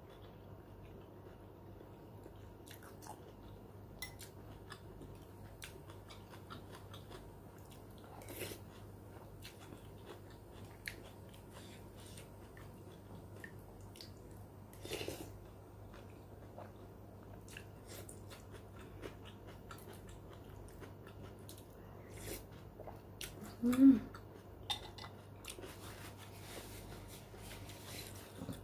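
Close-miked eating: a woman chewing spoonfuls of clear beef soto, with scattered light clicks of a metal spoon against a ceramic bowl. A brief louder vocal sound comes a few seconds before the end.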